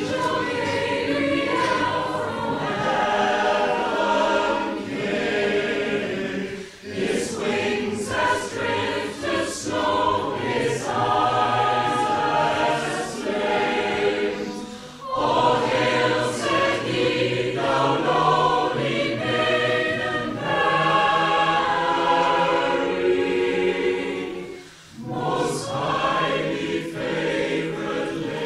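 Mixed choir of men and women singing together, with short breaks between phrases about 7, 15 and 25 seconds in.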